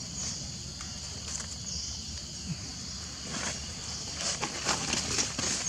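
A steady, high-pitched insect drone with light crackling and rustling of dry leaf litter as macaques move about on the forest floor. The rustling grows thicker from about three and a half seconds in.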